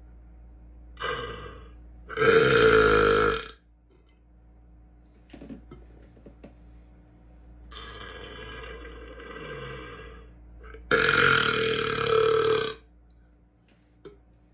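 A man belching: two loud, drawn-out burps about nine seconds apart, each over a second long, with a quieter burp sound before each.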